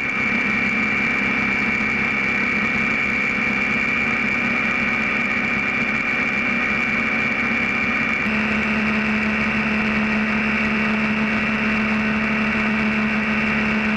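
BMW F650 GS motorcycle cruising at highway speed: a steady engine drone mixed with wind and tyre noise. Its tone shifts slightly about eight seconds in.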